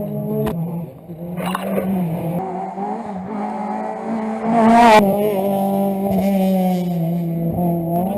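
Rally car engine running hard under load, with a short rasp about a second and a half in. Just past halfway the revs climb steeply, then cut off suddenly.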